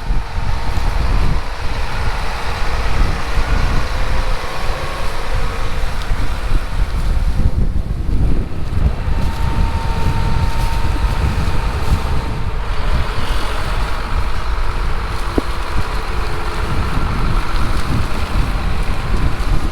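A farm machine's engine running steadily, with wind noise on the microphone.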